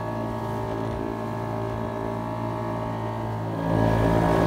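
Small motorboat's engine running steadily at cruising speed, a constant hum that gets louder about three and a half seconds in.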